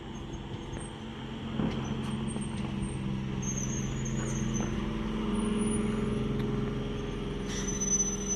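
Chennai suburban electric multiple-unit train coming alongside the platform, a steady hum of motors and wheels on rails that grows louder as the coaches pass close by. Faint high squeals join in partway through.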